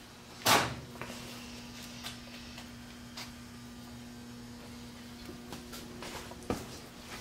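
A steady electrical hum, with a sharp knock about half a second in and fainter knocks near the end.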